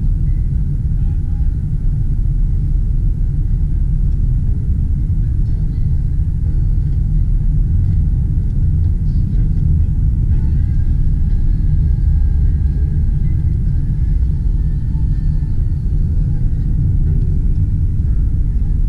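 Steady low rumble of a car driving at road speed, engine and tyre noise heard inside the cabin.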